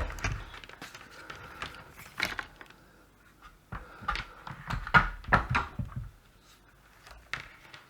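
Handling noise on a workbench: a scatter of light clicks and knocks as things are picked up and moved, busiest about five seconds in.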